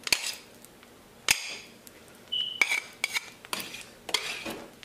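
A metal knife clinking and scraping against a plate and pan as butter is cut into pieces and pushed off: two sharp knocks, a short ringing clink, then a run of quicker clinks and scrapes.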